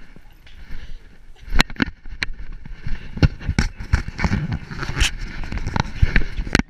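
Irregular sharp clicks and knocks with rubbing noise from a GoPro strapped to a poodle's back, jostled as the dog moves about.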